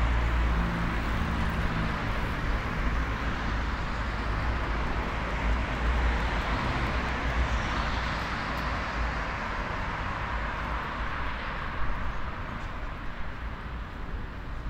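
City street traffic: cars passing with a low engine rumble that is strongest in the first half and eases off toward the end.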